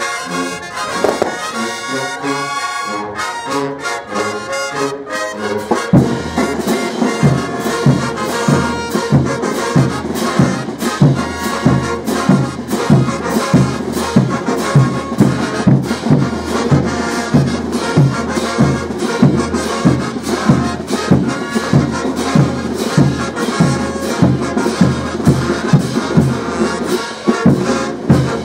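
Bolivian brass band playing a morenada: trumpets, baritone horns and sousaphones over big bass drums and crash cymbals. The drums and cymbals come in with a steady beat about six seconds in.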